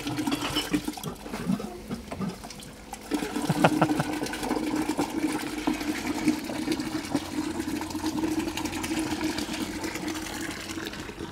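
Thetford iNDUS motorhome waste-water system discharging its tanks: water gushing from the outlet handle into a drain grate. A steady hum, typical of the system's discharge pump, joins about three seconds in.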